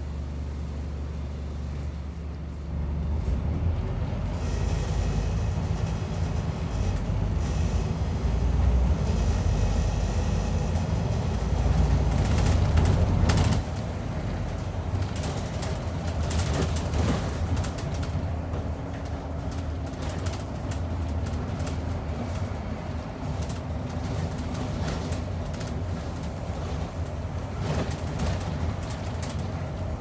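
Diesel engine of a Scania N230UD Optare Olympus double-decker bus, running with a steady low hum that grows louder about three seconds in and stays loud until about halfway through, then settles to a steadier, quieter run. Intermittent rattles and knocks sound over it.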